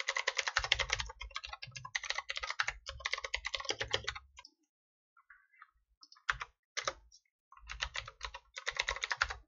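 Typing on a computer keyboard: fast runs of keystrokes, then about two seconds' pause about halfway through, a couple of single key presses, and another run of typing near the end.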